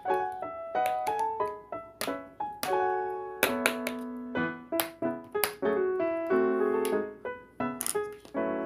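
Background music: a keyboard melody of short struck notes, several a second, with an occasional held chord.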